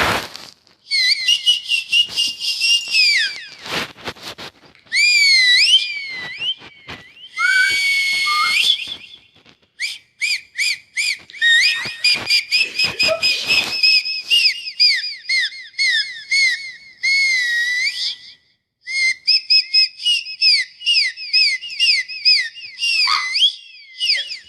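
Dog whining in many short, high-pitched, whistle-like squeaks that rise and fall, with brief pauses between runs.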